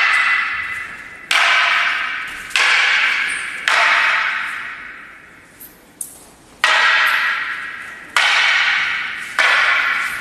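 Long wooden bo staffs clacking against each other in a paired drill: six sharp strikes, each ringing out and fading over about a second, with a couple of faint taps midway.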